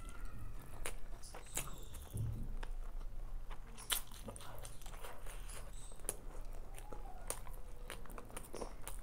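Close-miked eating sounds of a person chewing mouthfuls of chicken biryani eaten by hand: wet chewing and biting with many short sharp mouth clicks, one clearly louder about four seconds in.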